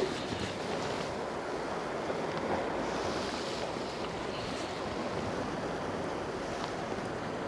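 Sea waves washing against a rocky shore: a steady, even rush of surf.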